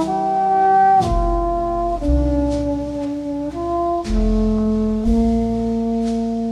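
Jazzy instrumental background music: held chords that change about once a second, over light percussion ticks.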